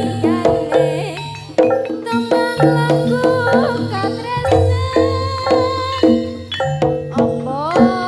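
Live East Javanese gamelan-style music: tuned metal percussion strikes short repeated notes in a steady pulse over drums and deep low strokes, with a wavering melody line held above.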